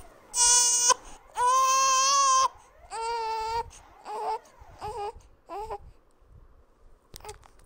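An infant crying: three loud wails in the first few seconds, the longest about a second, then shorter, weaker sobs that die away toward the end.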